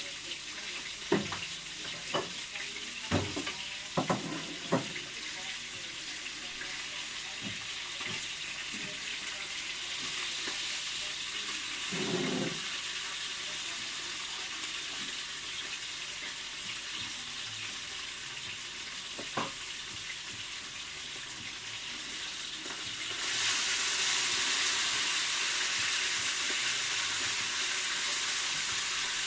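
Fish sizzling in a cooking pot, with several knocks and clinks from utensils in the first few seconds and one more a little past the middle. The hiss grows louder about three quarters of the way through.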